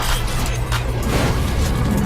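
Dramatic music with a heavy low rumble and repeated sharp crashing hits.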